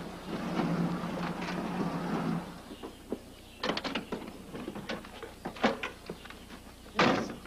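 A car engine running for the first couple of seconds, then scattered knocks and clicks, and a loud car-door slam about seven seconds in, on a muffled old film soundtrack.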